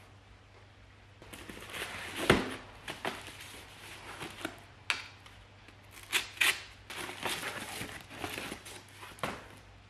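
Corrugated cardboard and plastic packing wrap being handled, torn and pulled off by hand. Irregular crinkling and rustling with a few sharp snaps.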